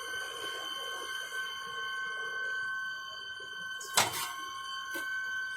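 A single sharp knock about four seconds in, over a steady high-pitched hum.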